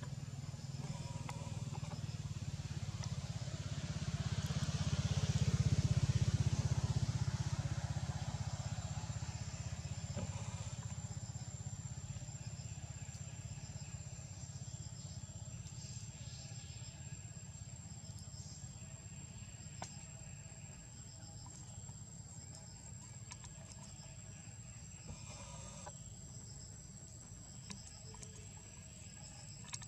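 Low drone of a motor vehicle passing by, swelling to its loudest about five or six seconds in and fading slowly, with a steady high-pitched insect whine from about eight seconds on.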